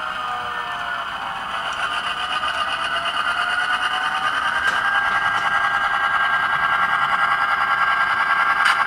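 Sound-decoder diesel engine sound from a model GP20 locomotive, played through the model's small speaker, so it is thin with little bass. The engine note rises in pitch a second or two in and keeps growing louder as the locomotive throttles up to pull.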